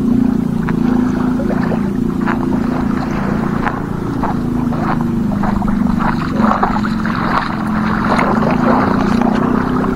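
A small engine running steadily, a low drone, with crackling noise over it.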